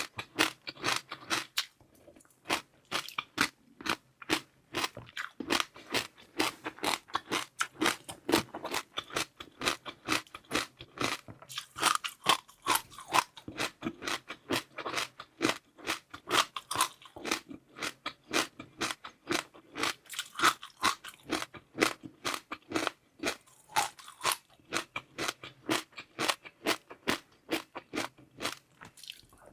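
Close-miked eating: rapid, crisp crunching and chewing of crunchy seaweed pearls, several sharp crunches a second, with a brief lull about two seconds in.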